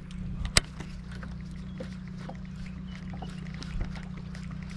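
Light clicks and taps of a baitcasting rod and reel being worked from a kayak over a steady low hum, with one sharp click about half a second in.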